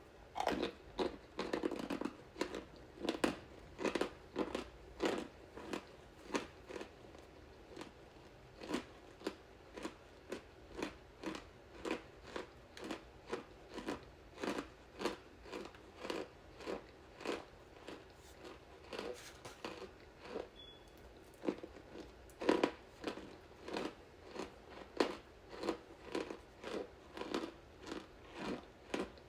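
A person biting and chewing crunchy pieces of scented starch, crisp crunches in a steady rhythm of about two a second.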